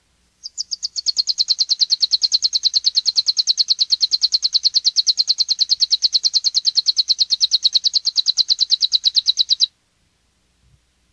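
Saffron finch (canário-da-terra) of the Magnata de Guariba strain singing its 'metralha' (machine-gun) song: one long, rapid, even trill of high notes, about nine a second, which starts about half a second in and stops abruptly near the end.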